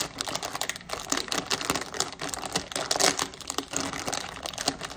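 Crinkly plastic Lay's chip bag being pulled open and handled: a dense, irregular run of crackles.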